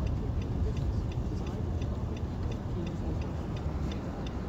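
Turn-signal indicator clicking steadily, about two to three clicks a second, over the low rumble of the car heard from inside the cabin.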